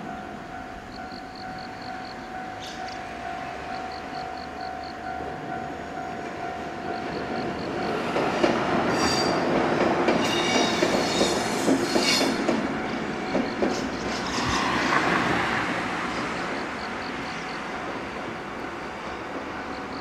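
Level-crossing warning bell dinging rapidly while a JR West 103-3500 series electric train runs over the crossing. The train is loudest from about eight to thirteen seconds in, with wheels clacking over the rail joints and a high squeal, then it fades away as the bell keeps ringing.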